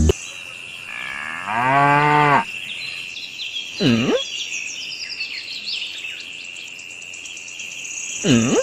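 A cow mooing: one long, low moo about a second and a half in, then two short calls that dip and rise in pitch, one around four seconds in and one near the end. Under them runs a steady background of chirring crickets and scattered bird chirps.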